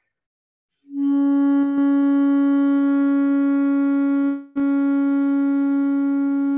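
Saxophone holding a steady long tone on the first overtone of low B-flat: the low B-flat fingering overblown to the octave, as an overtone exercise. The note starts about a second in and breaks off briefly past the middle before it resumes.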